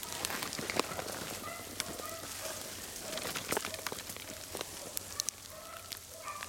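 Crunching and snapping of leaf litter and brush underfoot as someone walks through snowy undergrowth. From about a second and a half in, a pack of beagles bays faintly in the distance, short repeated notes running a rabbit.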